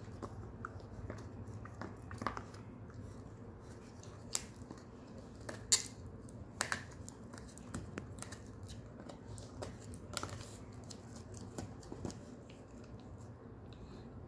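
Shetland sheepdog gnawing a cow horn: irregular sharp clicks and scrapes of teeth on hard horn, the loudest a little past the middle, over a low steady hum.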